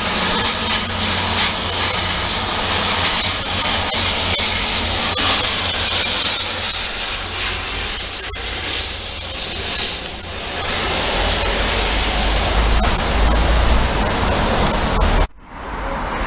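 A train passing close by on the station tracks: a loud rush of wheel and rail noise with fine clicking, a deeper rumble building after about ten seconds. The sound cuts off abruptly just before the end.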